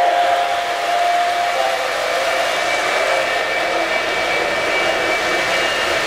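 O-gauge three-rail model trains running: a steady whirring of electric motors and wheels on the track as a black steam locomotive passes close and the blue streamlined Lionel Commodore Vanderbilt with its silver coaches approaches. A steady high tone dies away within the first two seconds.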